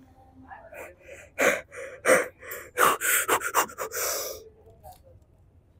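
A man's hard, gasping breaths in quick succession, forced out as he strains through heavy reps of lying leg curls. The run of sharp breaths starts about a second and a half in and stops about four and a half seconds in.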